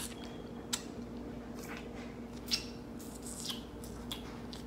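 A few short, sharp clicks and taps from hands and utensils being handled, over a steady low hum.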